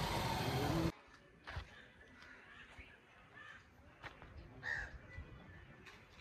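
A steady rush of noise that cuts off abruptly about a second in, then quiet outdoor air with a crow cawing faintly a few times.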